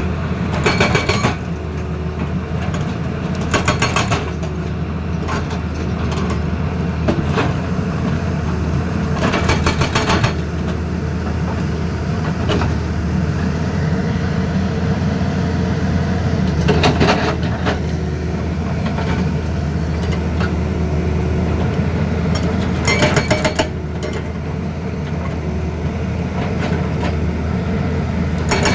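Heavy diesel engine of a Tata Hitachi Zaxis excavator running steadily under load, with short bursts of rapid metallic knocking every few seconds.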